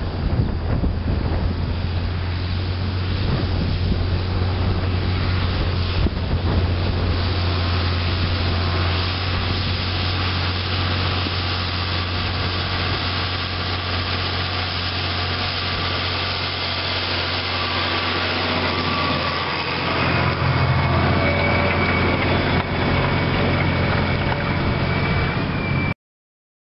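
Massey Ferguson 6475 Dyna6 tractor's diesel engine running steadily under load while ploughing, a continuous low drone. It gets a little louder about twenty seconds in, then cuts off abruptly near the end.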